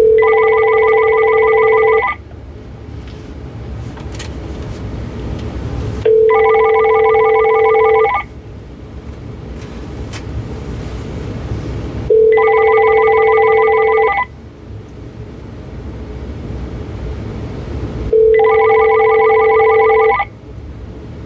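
Uniden D1680 DECT 6.0 cordless phones ringing for an incoming call: four rings of about two seconds each, starting six seconds apart. Each ring is a steady low tone for about its first second with a rapid trilling higher tone throughout.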